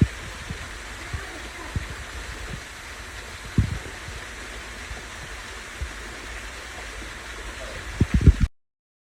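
Steady rush of falling water from a waterfall or stream, with several low thumps, the loudest a cluster near the end, before the sound cuts off suddenly.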